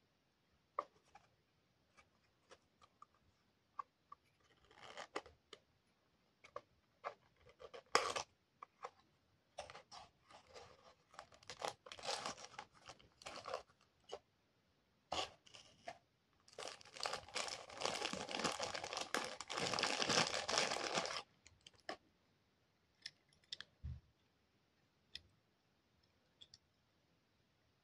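Hands unboxing a small die-cast toy car: scattered clicks and taps of the cardboard box flaps, then crinkling and rustling of the thin plastic bag as the car is unwrapped, loudest in one continuous stretch of about four seconds past the middle.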